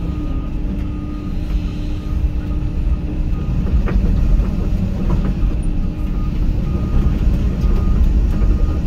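Hyundai HX220AL excavator's diesel engine running under load, a steady low rumble with a constant hum over it, growing a little louder partway through. A beeper sounds in short, evenly spaced beeps, about three every two seconds, for the first second or so and again from about seven seconds in: the travel alarm as the machine tracks. Two sharp clanks come near the middle.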